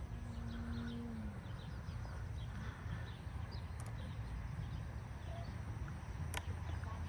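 Faint outdoor ambience: a low rumble of wind on the microphone with occasional bird chirps, and a faint hum that dips in pitch and fades out just over a second in.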